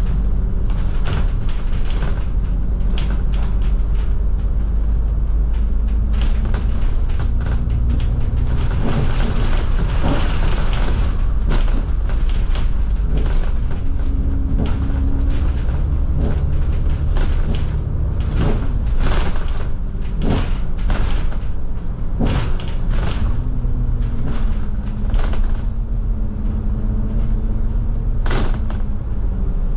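Cabin sound of a double-decker bus in motion. The diesel engine drones and its pitch rises and falls as it pulls away and changes gear, over a steady low rumble with frequent rattles and knocks from the bodywork and fittings. A rush of hiss comes about nine seconds in.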